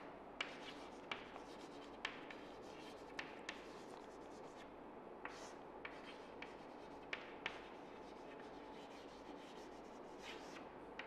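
Chalk writing on a chalkboard: faint scratching of the chalk with scattered light taps as the letters are formed.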